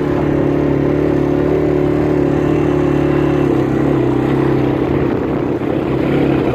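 Motor vehicle engine running steadily, with a rough rumble beneath a steady drone; the pitch dips slightly about four seconds in.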